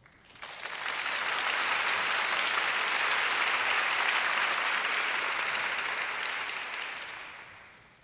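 Audience applauding: the clapping starts about half a second in, holds steady, then dies away over the last couple of seconds.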